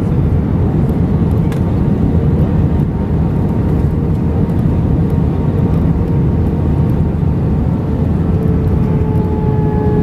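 Airbus airliner cabin noise in flight: a steady low roar of engines and airflow, with a faint hum whose pitch dips slightly near the end.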